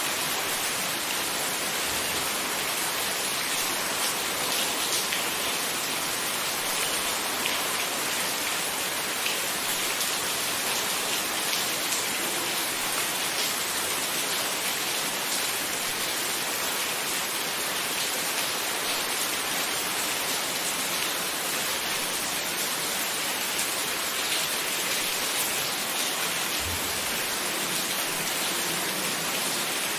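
Steady rain falling: an even hiss with scattered individual drops ticking through it.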